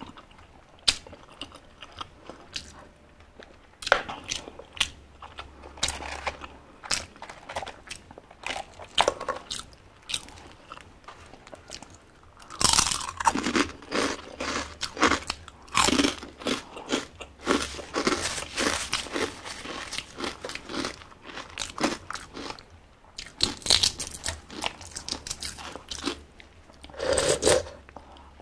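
Close-miked eating: sparse chewing sounds, then, about halfway through, a long run of loud crisp crunches as fried pork rind chicharon is bitten and chewed, with another burst of crunching near the end.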